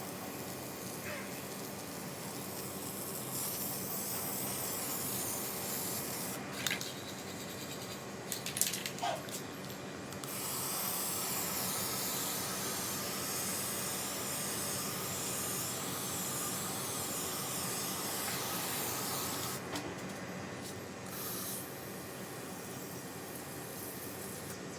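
Hissing spray in several bursts, the longest a steady spray of about nine seconds starting around ten seconds in.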